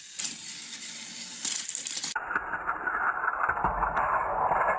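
Battery-powered plastic toy trains whirring along plastic track, then clattering and knocking as they derail and tumble off it, with a few knocks about three and a half to four seconds in.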